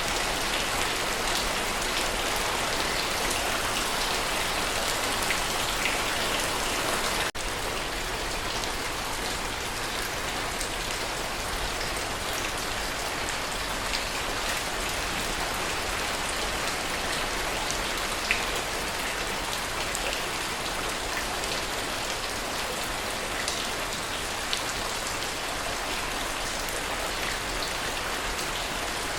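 Steady rain, an even hiss with scattered individual drop ticks, with a brief break about seven seconds in.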